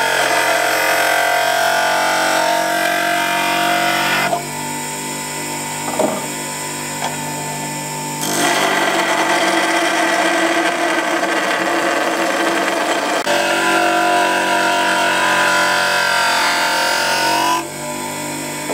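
Bench grinder running while a steel turning tool is pressed against its wheel to sharpen it, giving a harsh, steady grinding hiss. About four seconds in the grinding eases off for a few seconds, with a couple of knocks as the tool is repositioned, then it resumes. Near the end the tool is lifted off and only the grinder's motor and wheel are heard running.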